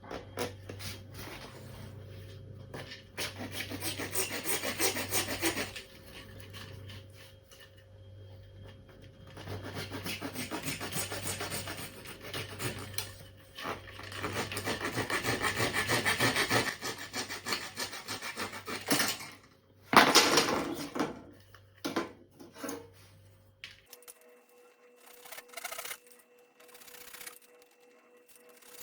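Japanese pull saw cutting plastic cable trunking in quick back-and-forth strokes, in three runs of a few seconds each, then a sharp loud knock about twenty seconds in and a few lighter clicks.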